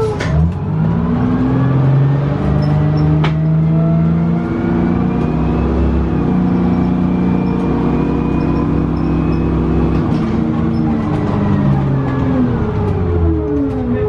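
Detroit Diesel 6V92TA two-stroke turbo V6 diesel of a transit bus pulling away under load, heard from inside the bus: the engine climbs in pitch just after the start, runs on with a few steps in pitch as the Allison automatic shifts, and falls away near the end as the bus slows. A couple of sharp clicks come early on top of the engine.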